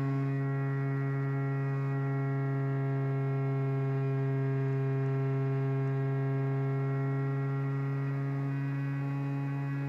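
A steady low hum with many overtones, holding one pitch throughout.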